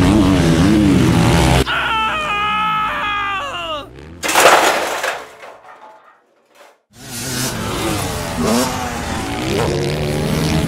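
Motocross engine noises for a toy dirt bike: a wavering engine note, then a higher whine bending down in pitch, and a harsh crash burst a little before halfway. A moment of silence follows, then the engine note starts up again.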